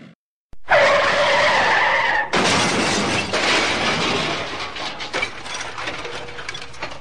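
Car crash sound effect: tyres screech for about a second and a half, then a loud crash with shattering glass and rattling debris that slowly fades.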